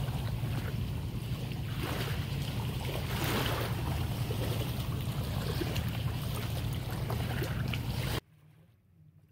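Wind buffeting the microphone as a steady low rumble, with small waves lapping at the shoreline. It cuts off suddenly about eight seconds in, leaving only a faint steady background.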